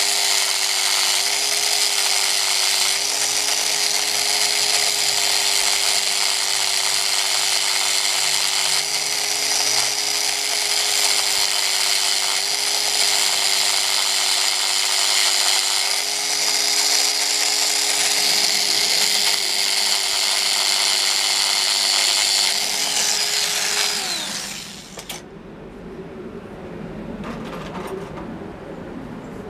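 Handheld electric rotary tool running at high speed against a small metal part clamped in a vise, with a steady high whine and a hiss of grinding. Its pitch dips slightly now and then as it bites. About 24 seconds in it is switched off and winds down, leaving only a few faint clicks.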